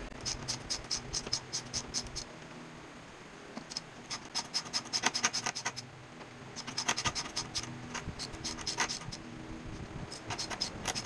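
Socket ratchet clicking in quick runs of several clicks a second, in four spells with short pauses, as the 10 mm nut on a car battery's hold-down bracket is backed off.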